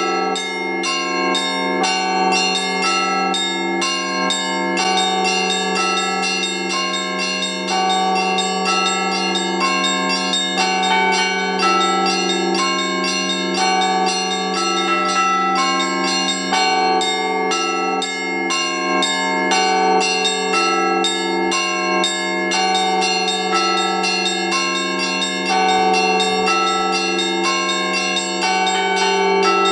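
Russian Orthodox church bells rung by hand from ropes in the Rostov style: quick, patterned strikes of the smaller bells over a steady deep hum from a large bell.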